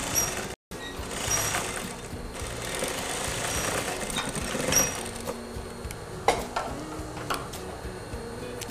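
Siruba industrial straight-stitch sewing machine running in steady bursts, sewing a straight topstitch seam through satin, then stopping about halfway through. A few sharp clicks follow as the thread is snipped with scissors.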